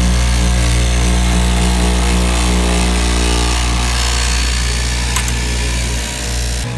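Blue Streak straight-knife fabric cutting machine running, its electric motor driving the reciprocating blade through a stack of fabric layers. The low hum is loud and steady over a hiss, with a sharp click about five seconds in.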